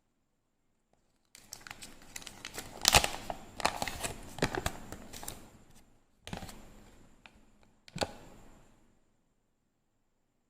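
Candy wrapper being torn open and crinkled by hand, a dense run of crackling with a sharp loud rip about three seconds in. Two shorter crinkling bursts follow, the last a sharp crackle near the end that fades out.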